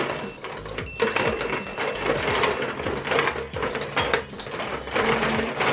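Chopsticks rummaging through balls in plastic buckets: a dense run of small clicks and rattles.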